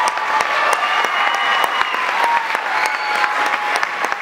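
Audience applauding: dense, steady clapping at the end of a performance.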